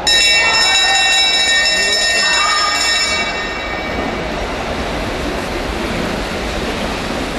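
Velodrome lap bell ringing steadily for about three and a half seconds, the bell that marks a points sprint in a points race. Over it and after it, the bunch of track bikes whirring along the wooden boards.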